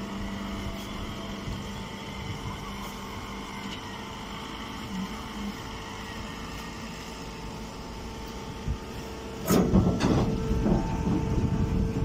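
Steady machine hum of a hydraulic hay press baler at work. About nine and a half seconds in, loud rustling and crackling of compressed straw and woven sacking starts as the bale is handled at the press.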